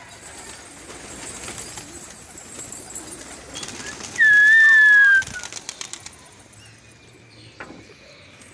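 Flock of domestic pigeons flapping their wings as they take off and fly around. About four seconds in there is one loud, clear whistle lasting about a second, falling slightly in pitch.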